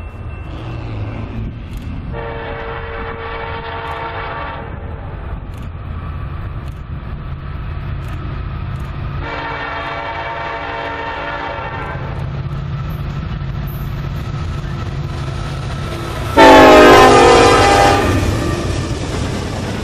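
Norfolk Southern freight locomotive's air horn sounding three blasts: two long blasts several seconds apart, then a shorter, much louder blast near the end as the locomotive passes close by. The low rumble of the moving train runs underneath.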